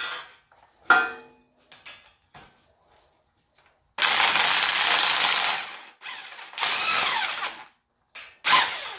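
Yellow DeWalt-style cordless drill driving a Speed Tap thread-cutting tap into a hole in a steel plate, cutting 3/8 threads. A few light clicks come first; the drill then runs for about a second and a half from about four seconds in, runs again for about a second and a half just after six seconds, and gives a short burst near the end.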